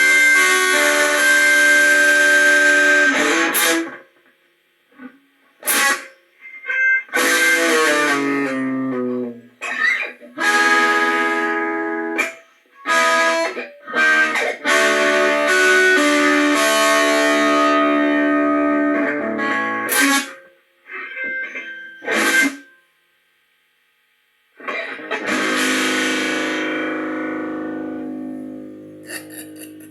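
Guitar playing the ending of a blues tune: held chords give way to short stop-start chords, each cut off sharply with silences between. Near the end a last chord rings out and slowly fades.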